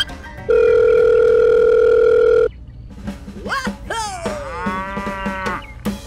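A telephone dial tone sounds steady and loud for about two seconds, then cuts off suddenly. Later a cow moos in one long call near the end.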